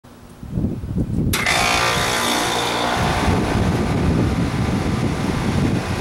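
Outdoor air conditioner condenser unit running: a steady fan whoosh over a compressor hum, coming up abruptly to full loudness about a second in.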